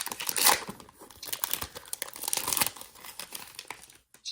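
Foil wrapper of a Pokémon card booster pack crinkling and tearing as it is opened, busiest in the first three seconds, then thinning to a few small rustles.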